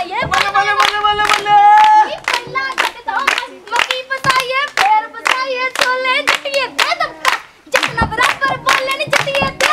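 Women singing a Punjabi song to steady rhythmic hand-clapping, about three claps a second.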